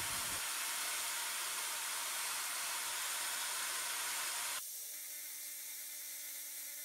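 Steady hiss with no distinct event. About four and a half seconds in it drops slightly and a few faint steady hum tones come in.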